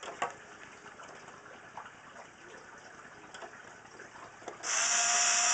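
Faint clicks of the sheet-metal lid being handled, then near the end an electric screwdriver's motor runs steadily for about two seconds and stops abruptly.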